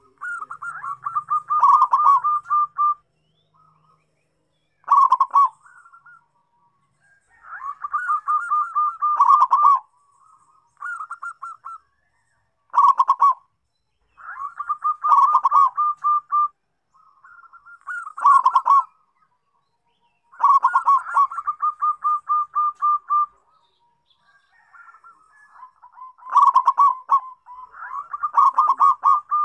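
Zebra dove (perkutut) cooing: repeated phrases of rapid, pulsed coo notes around a single pitch, each phrase one to three seconds long, with short pauses between them.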